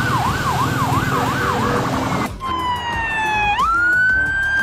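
Police car sirens. A fast up-and-down yelp, about three sweeps a second, cuts off about two seconds in. A different siren follows: it slides down, jumps up about a second later and holds a high, slowly rising wail.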